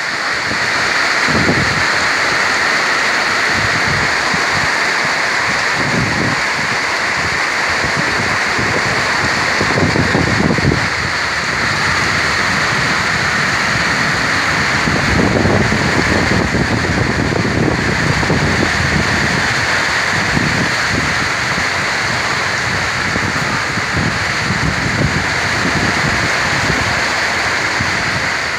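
Heavy tropical rain pouring down, a loud, steady hiss, with wind now and then buffeting the microphone in low rumbling gusts.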